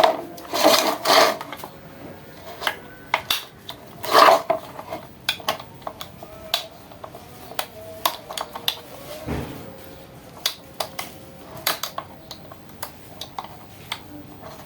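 Irregular clinks, clicks and knocks of hard objects being handled, with louder clattering about a second in and again about four seconds in.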